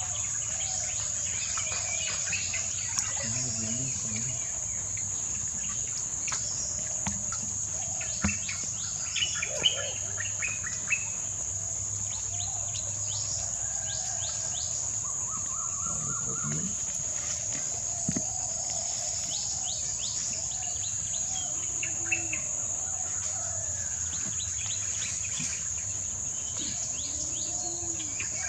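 Steady high-pitched insect drone, like crickets, with scattered bird chirps and calls over it and a few small clicks.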